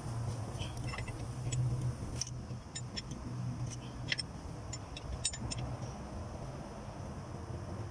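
Steady low hum with faint, scattered light metallic ticks and clicks in the first few seconds, as of hand tools being handled on an engine with its valve cover off.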